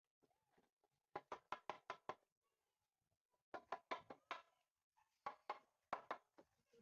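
Sharp knocks on wood in three quick runs of about five to seven strokes each, with short pauses between.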